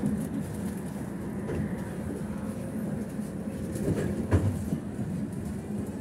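Inside a BKM 60102 tram: steady low hum and rumble of the tram, with one sharp clack a little past four seconds in.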